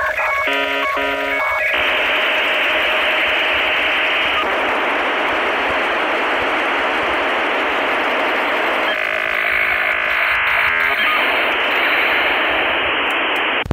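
Electronic sound effects of a battery-powered toy MP5-style submachine gun, played through its small built-in speaker: a few short beeps, then a long hissing burst of gunfire noise. About nine seconds in it turns into a fast rattling run of tones for two seconds before the hiss returns and cuts off suddenly.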